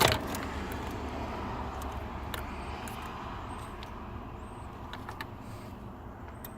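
A sharp plastic click from a wiring-harness connector being unplugged, then a few faint clicks of handling the connectors over a steady low rumble.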